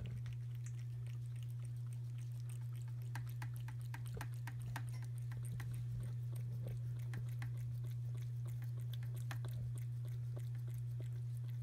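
A cat eating chunks of wet food in gravy from a can, with many quick, irregular chewing clicks, over a steady low hum.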